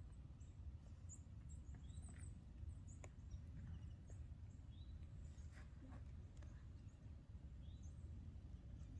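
Near silence: a faint low rumble with scattered faint, short bird chirps.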